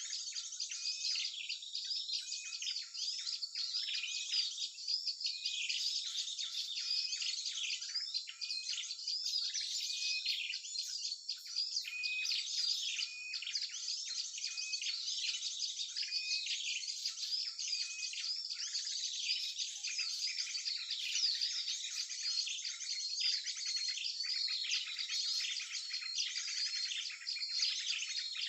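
Dense, unbroken chorus of many small birds chirping, twittering and trilling over one another. It is a mixed small-bird call recording played as a trapping lure, with nothing heard below a high, thin range.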